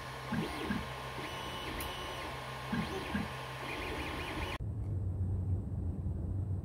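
FDM 3D printer at work: the stepper motors whine in short rising and falling sweeps as the print head moves, over a steady cooling-fan hum. About four and a half seconds in, the sound cuts to a quieter low rumble of outdoor background.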